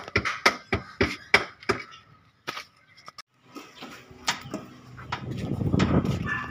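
Sharp knocks, about three a second, for the first two seconds. After a pause, the Toyota Revo's engine runs, growing louder toward the end.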